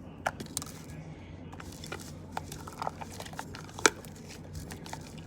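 Freshly activated water-based slime being stirred and worked, giving sticky crackling and scattered clicks, with one sharper click about four seconds in.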